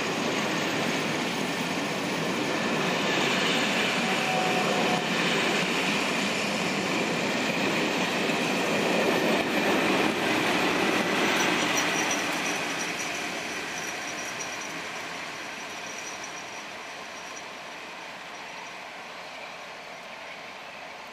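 Passenger coaches of a departing locomotive-hauled train rolling past on the rails, with wheel and rail noise and a thin, high wheel squeal. Loudest around ten seconds in, then fading as the train draws away.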